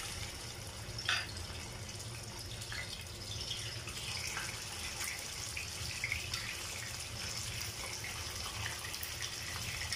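Pieces of tuna frying in hot oil, a steady sizzle with scattered spitting crackles as each piece is laid into the pan.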